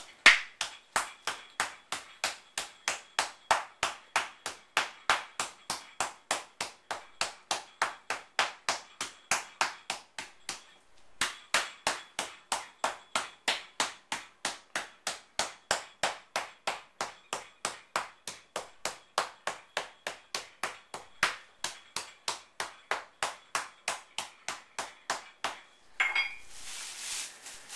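Meat mallet pounding a plastic-wrapped chicken breast flat, steady strikes about three a second with a brief pause partway through. The pounding stops near the end, and a softer rustling sound follows.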